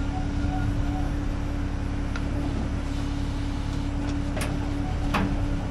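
Heavy diesel engine running steadily with a low hum, with a few sharp knocks in the second half.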